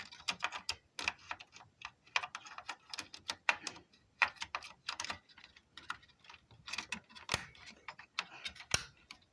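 Irregular small clicks and taps, a few sharper snaps among them, from hands handling computer parts and RAM modules in their motherboard slots.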